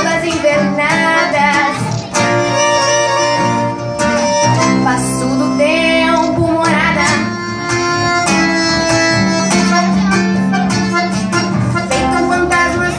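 Live acoustic guitar and accordion playing a Brazilian gaúcho song, the accordion holding long chords over plucked and strummed guitar, with a young girl's singing voice at times.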